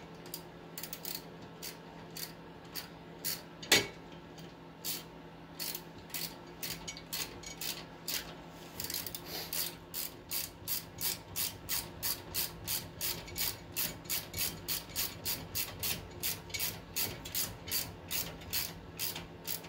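Hand ratchet wrench clicking as the mounting bolts of a new front wheel hub bearing assembly are run in and tightened. The clicks are irregular at first, with one louder knock about four seconds in, then settle into a steady rhythm of about three clicks a second.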